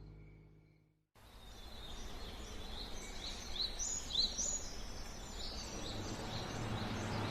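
Background music fades out about a second in, followed by a moment of silence. Then steady outdoor ambience with birds chirping: a run of short rising-and-falling chirps in the middle.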